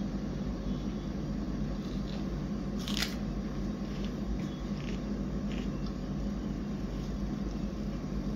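A steady low machine hum, with one sharp click about three seconds in and a few faint ticks after it.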